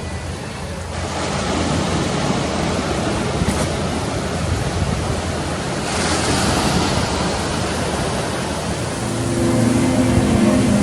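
Ocean surf, with waves breaking and washing up the beach as a steady rush that swells about a second in and again around six seconds in. Music fades in near the end.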